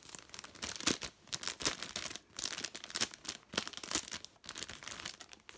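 Packaging rustling and crinkling as it is handled, in an irregular run of short crackles.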